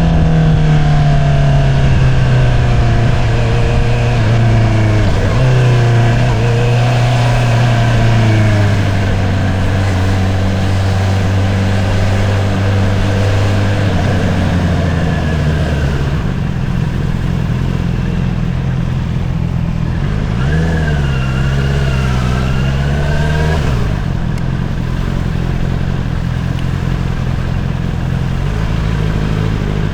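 2022 Honda CBR650R's inline-four engine through an Akrapovič single-outlet exhaust, heard from the rider's seat. The engine note falls steadily as the bike slows over the first third, holds a steady lower note, gives a short rise and fall a little past two-thirds in, then settles into a steady low running note.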